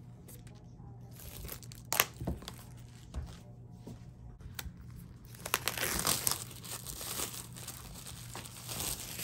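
Clear plastic shrink-wrap being torn open and peeled off a boxed iPad Pro, crinkling, with one sharp snap about two seconds in and denser, louder crinkling in the second half.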